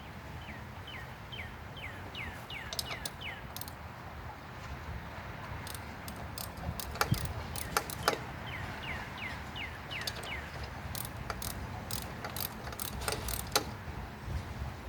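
Hand tools working on a lawn tractor: scattered sharp metallic clicks and ticks, like a ratchet wrench and parts being handled, over a steady low traffic rumble. Two runs of quick falling chirps come in, one near the start and one about halfway.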